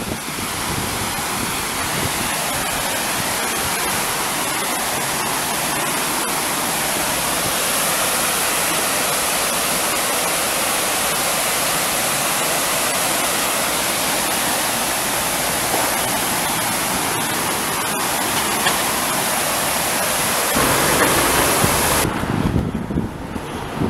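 Water pouring over a river weir, a steady rush of white water. Near the end a low rumble on the microphone comes in and the higher hiss of the water falls away.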